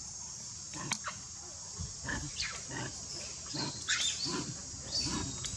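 Macaque vocalizations: a string of short grunts and squeaks, a few a second, starting about two seconds in, over a steady high insect buzz.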